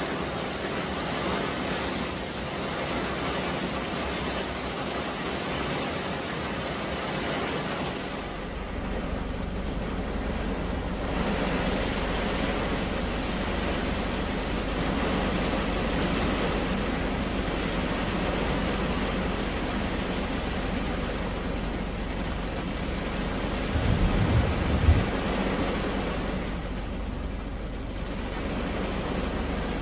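Steady rain falling on a car's roof and glass, heard from inside the car. About twenty-five seconds in, a brief low rumble swells up and is the loudest sound.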